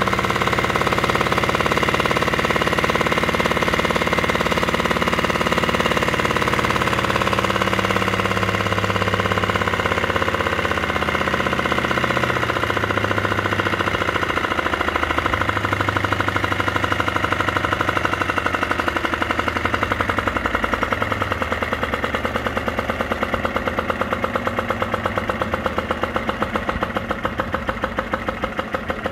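3D-printed rhombic-drive Stirling engine running, a fast rhythmic clatter from its plastic mechanism, with a torch flame hissing on its hot end at first. After about ten seconds the hiss drops away and the engine's beat slows gradually and grows quieter.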